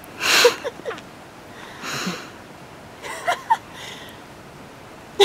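A person's breathy vocal sounds: a sharp exhale about a third of a second in, a softer one near two seconds, then a few short voiced sounds around three seconds.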